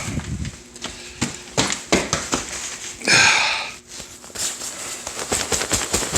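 Footsteps and handling knocks as someone moves about with a cat, with one short, loud hiss about three seconds in.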